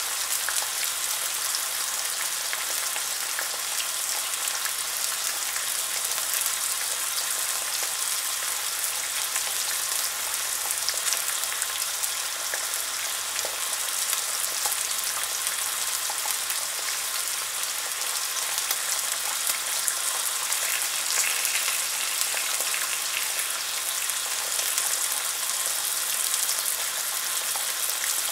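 Unsmoked back bacon rashers sizzling in a carbon steel frying pan: a steady hiss dotted with fine spitting crackles.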